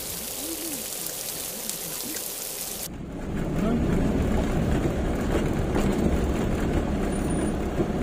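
Steady hiss of rain, then about three seconds in an abrupt switch to the louder rumble of the Isuzu Elf bus's diesel engine and road noise, heard from inside the cabin as it drives slowly.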